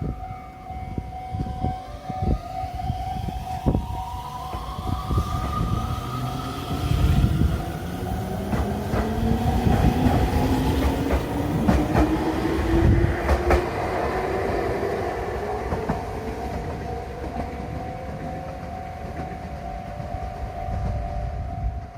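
HK100 diesel railcar accelerating, heard from on board. A whine rises steadily in pitch under a low rumble, with clicks and clacks of the wheels over the rails.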